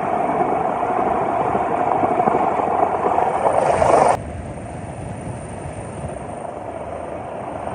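Helicopter noise, a steady drone of engine and rotors, cutting off abruptly about four seconds in to a quieter steady rushing noise.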